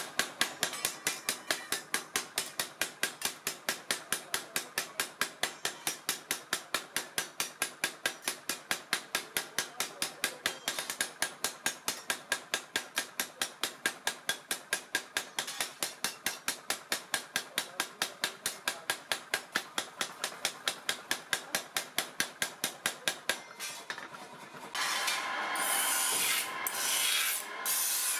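Mechanical power hammer striking a steel trowel blade on its anvil in a fast, even rhythm of blows. The blows stop about 24 seconds in, and near the end a bench grinder's stone wheel grinds the steel with a rough rasping noise.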